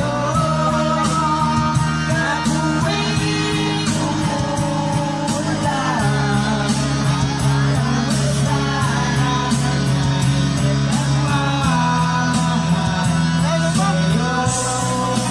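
Karaoke: a man singing into a microphone over a loud backing track, the bass notes changing every few seconds under his wavering melody.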